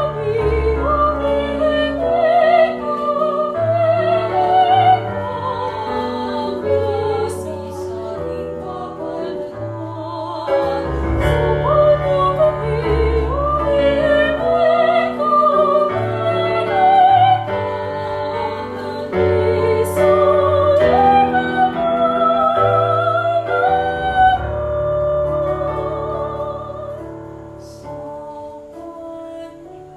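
A hymn to the Virgin sung in Kapampangan by a voice with strong vibrato over piano accompaniment, the music getting quieter over the last few seconds.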